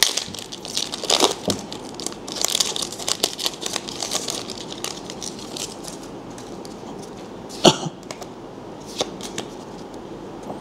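Foil booster pack wrapper being torn open and crinkled, then the trading cards inside being handled, with a sharp click a little past the middle.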